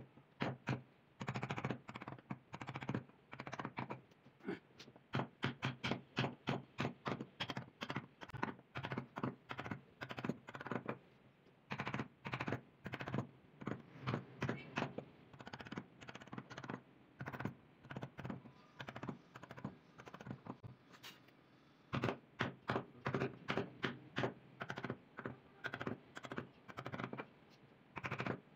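Mallet tapping a carving chisel into wood, in runs of quick sharp knocks about three a second with short pauses between runs.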